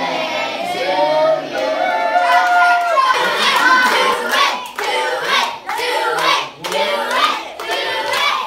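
A group of children singing together in long held notes. About three seconds in, this gives way to loud, uneven clapping mixed with children's shouts and cheers.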